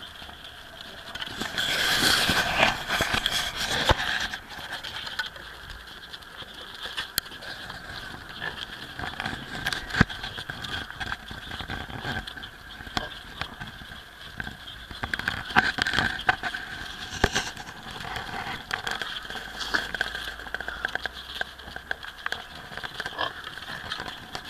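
Newborn mini pig piglets play-fighting: scuffling, with many small clicks and scrapes of hooves on paving stones, loudest about two to four seconds in.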